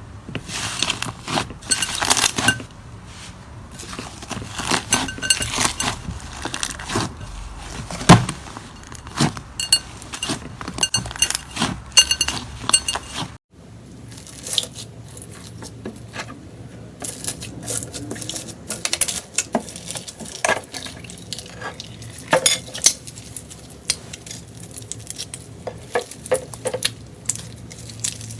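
Slime being squeezed, poked and stretched: a dense run of sharp clicks, pops and crackles. The sound breaks off briefly about thirteen seconds in, then carries on.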